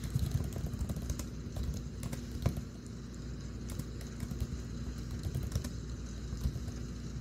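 Irregular light clicks of typing: keystrokes as a search phrase is typed out, over a low steady hum.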